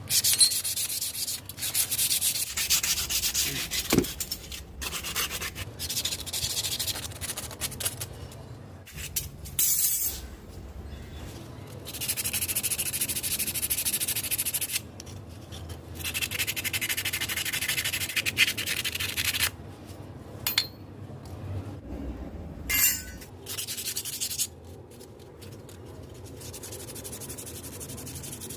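Hand rubbing or scrubbing strokes on a hard surface, scratchy and coming in runs of a few seconds with short pauses, then quieter near the end.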